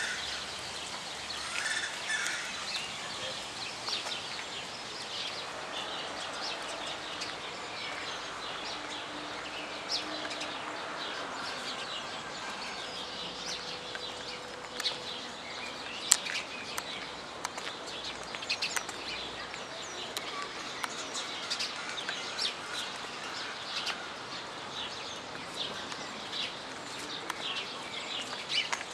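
Many birds chirping with short, high calls, with a single sharp click about halfway through.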